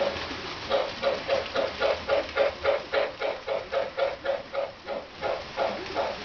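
MTH RailKing Pennsylvania K4 model steam locomotive's electronic sound system chuffing in a steady rhythm, about four to five chuffs a second, as the train runs along the track.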